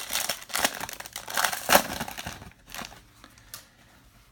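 Trading card pack wrapper crinkling and tearing as it is opened by hand, dense for about two and a half seconds and then dying down to a few faint clicks as the cards are handled.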